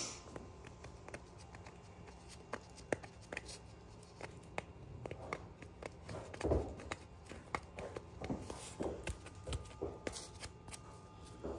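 Soft rustling and scattered light taps and clicks of a gloved hand handling a mule's trimmed hoof, with a few dull thumps in the second half.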